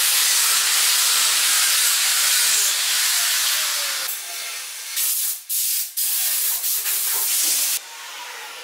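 Handheld power sander running against a carved wooden car body, a steady hiss of abrasive on wood. In the second half the sound cuts in and out in short stretches, then falls away near the end.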